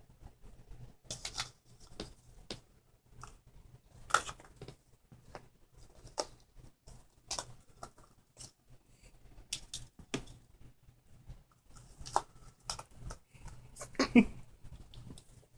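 Kitten pawing and scrabbling at its toy cup: irregular light clicks, taps and scratches, with a sharper knock about four seconds in and a louder clatter near the end.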